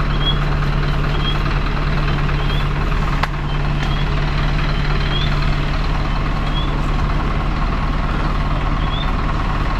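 A heavy truck's engine running steadily, with a short high chirp repeating about once a second.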